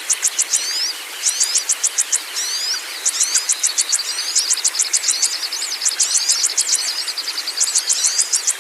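Songbird song: repeated bursts of rapid, high, sharp notes, about eight to ten a second, with downward-sliding whistles between them and a steady high trill through the middle, over a constant hiss.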